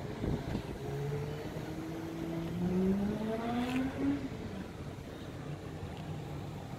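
A motor vehicle accelerating, its engine pitch rising steadily for about three seconds and then fading, over a steady background rumble.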